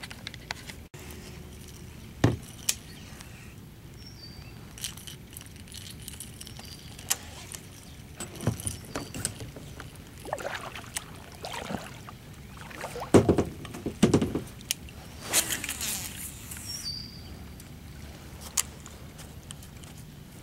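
Handling sounds in a plastic kayak: scattered knocks and splashes, the loudest two close together past the middle, over a steady faint hiss of light rain on the water.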